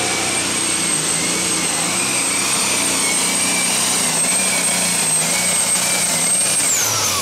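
John Deere heavy super stock pulling tractor's turbocharged diesel engine running hard under load as it drags the weight sled. A high steady whine rides over the engine and drops in pitch near the end.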